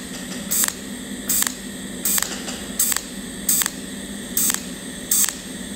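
Cold welding machine pulse-welding an inside corner seam with a tungsten torch, spot by spot. Each pulse of the arc is a short crackling burst, about seven of them evenly spaced roughly three-quarters of a second apart.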